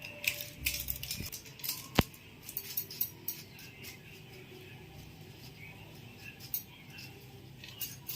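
Quiet kitchen handling as dried mixed herbs are shaken from their container over sliced chicken: scattered light clicks and rustles, with one sharp click about two seconds in.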